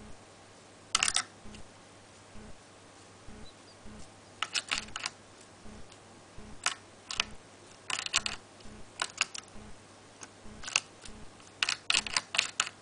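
A white Java sparrow's beak tapping and pecking at a clear plastic bath dish and its water: short clusters of sharp clicks every second or two, heaviest about a second in and near the end.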